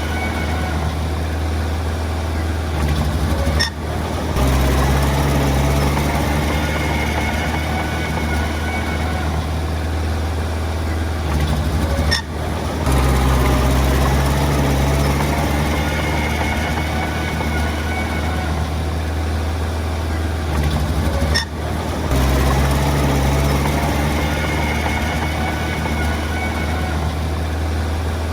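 Komatsu D20 bulldozer's diesel engine running steadily. About every nine seconds the sound dips briefly, then comes back louder and deeper, as the engine takes up load again.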